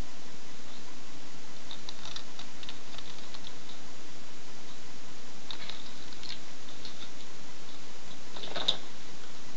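Steady hiss with scattered light clicks and taps, and one sharper clack about eight and a half seconds in.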